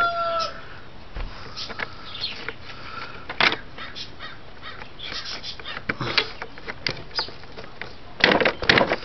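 Hard plastic clicks and knocks as a spin-scrub brush is worked back into the underside of a Hoover SteamVac carpet cleaner, a scattered few with a sharper knock about three and a half seconds in and a quick cluster near the end. It is a tight fit that takes some forcing.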